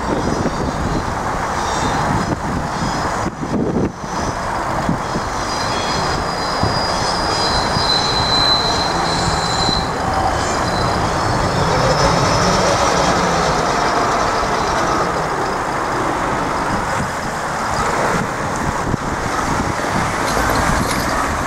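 Train running past on the railway line, with a steady rumble and high metallic wheel squeal that fades after about ten seconds.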